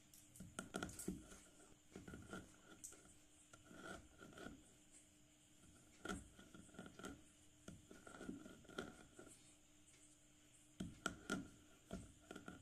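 White school chalk sticks being crushed and scraped into a pile of chalk powder by hand. The sound is faint, irregular crunching and scraping, with a few sharper cracks about a second in and near the end.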